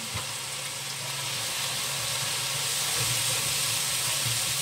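Spices frying in hot oil in a wok, sizzling steadily as a spatula stirs them; the sizzle grows a little louder about two seconds in.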